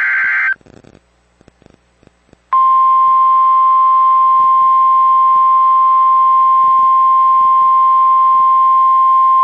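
The last burst of an Emergency Alert System SAME header, a buzzy data tone, cuts off about half a second in. After a short pause, the steady 1050 Hz NOAA Weather Radio warning alarm tone starts abruptly about two and a half seconds in and holds, the signal that a new warning message is about to follow.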